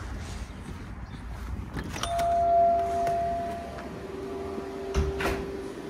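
A shop door opening with a click, then a steady electronic tone for about two seconds over a lower steady hum, and a thump near the end.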